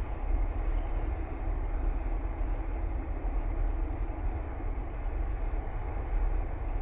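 Boeing 787 Dreamliner's jet engines running, a steady deep rumble and roar without change.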